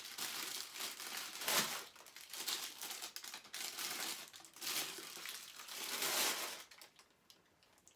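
Packaging crinkling and rustling unevenly as statue parts are handled and unwrapped, dying away about seven seconds in.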